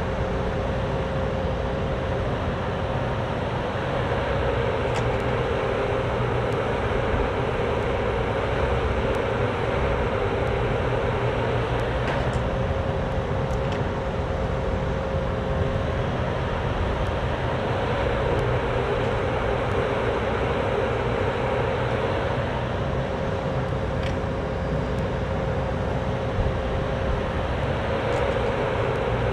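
Cat 304D mini excavator's diesel engine running steadily as the machine works its bucket backfilling soil, with a steady whine over the engine noise.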